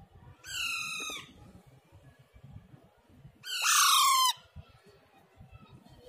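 Young Alexandrine parakeet calling twice: two drawn-out calls, each under a second long and dropping in pitch at the end, about three seconds apart, the second louder.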